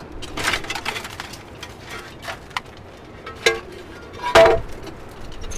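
A run of separate knocks and clinks of wood and broken glass as the toppled wooden pigeon coop is handled, the loudest about four and a half seconds in.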